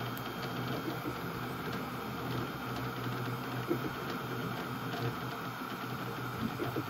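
Flashforge Adventurer 5M 3D printer printing the first layer of a PETG model: a steady whir of its fans with a low motor hum as the print head moves, and a few faint ticks.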